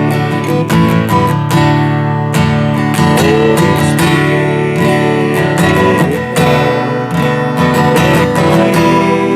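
Live worship music without singing: an instrumental passage led by a strummed acoustic guitar.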